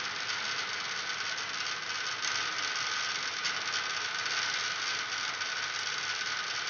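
Steady, even whirring noise with a faint steady tone and a light rattle, from an electric fan running.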